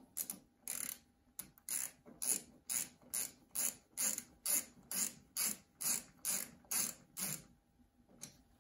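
Small ratchet wrench clicking in an even rhythm, about two clicks a second, as it turns the cap back over the low-fire adjustment screw on the boiler's gas valve. The clicking stops a little over a second before the end.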